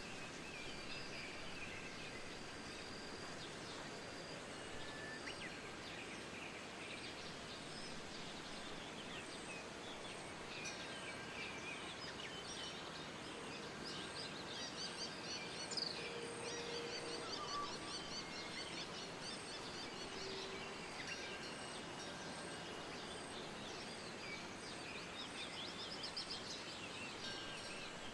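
Many small birds chirping and singing over a steady rushing wind, the chirping busiest in the middle stretch.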